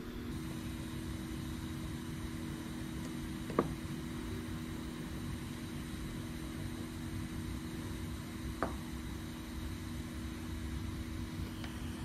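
A lit butane soldering iron hissing faintly under a steady low hum, with two light clicks, one a few seconds in and one past the middle.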